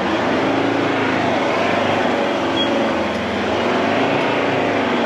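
Four-wheel-drive engine working hard in low range, towing an off-road caravan through very soft sand. Its revs rise and fall steadily against the churn of the tyres in the sand.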